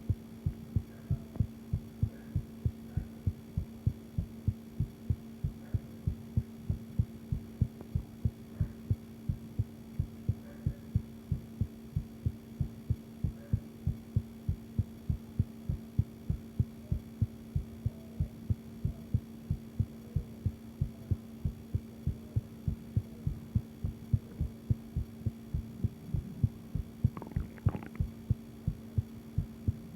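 A woman's heartbeat: steady, evenly spaced lub-dub beats at a regular resting rhythm, over a faint steady hum. There is a brief rustle near the end.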